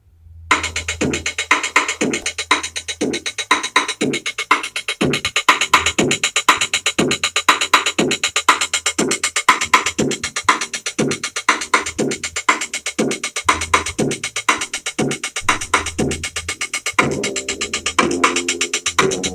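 Akai XR20 drum machine playing a programmed electronic beat: a steady pattern of kick, snare and fast hi-hats over a low bass, starting about half a second in. Near the end a pitched melodic part joins the beat.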